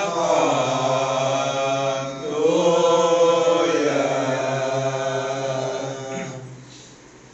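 A group of men chanting marhaban, Malay devotional verses praising the Prophet, in long held notes that bend slowly up and down. The chanting breaks briefly about two seconds in and dies away near the end.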